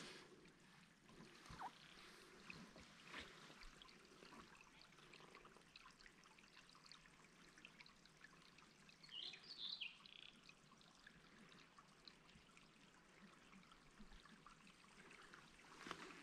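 Faint trickle of water seeping through swamp moss and grass, barely above silence, with a brief burst of high bird chirps about nine seconds in.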